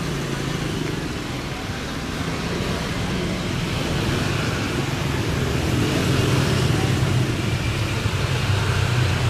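Steady engine rumble with a low hum, growing gradually louder.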